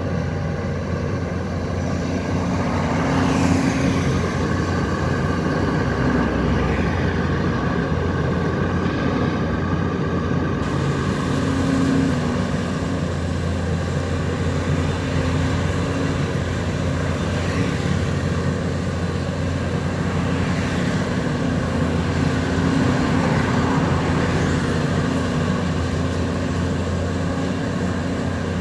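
Volvo EC210 crawler excavator's diesel engine running steadily under working load, with a few brief rising whines.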